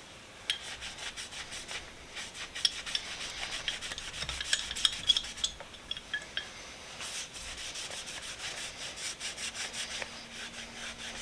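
Paste wax being rubbed and buffed off a steel Proto 814 pipe wrench by hand: a quick, irregular run of short wiping strokes.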